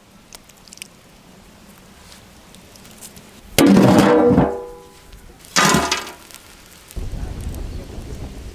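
Two sharp metallic clangs about two seconds apart from the lid of a large aluminium cooking pot, the first ringing on for about a second. A low rushing noise follows in the last second and a half.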